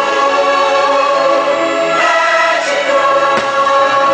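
Fireworks-show soundtrack of choral singing with orchestral backing, with one firework bang about three and a half seconds in.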